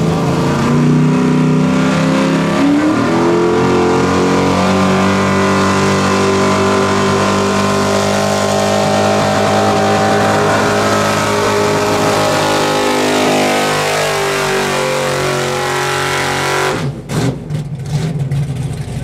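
Enhanced gas four-wheel-drive pulling truck's engine revving up and then held wide open at a steady high pitch during a pull. The pitch sags slightly near the end, and the engine lets off abruptly about seventeen seconds in.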